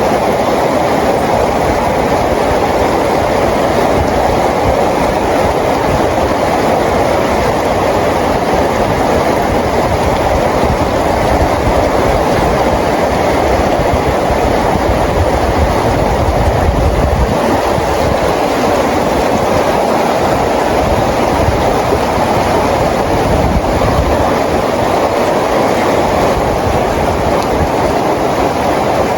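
Steady, even rainfall with a low rumble that swells about halfway through.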